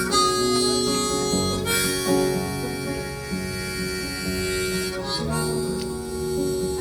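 Instrumental break of a country song: a harmonica playing the lead over strummed acoustic guitar.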